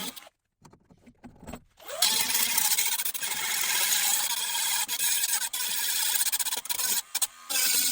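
A handheld power cutting tool spins up about two seconds in and cuts into the sheet steel of a VW Beetle door, a steady, hissing high whine with a short break near the end.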